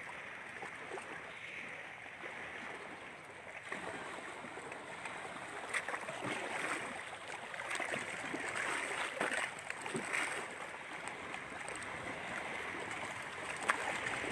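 Choppy lake water splashing and lapping against the shore: a steady wash with scattered small splashes.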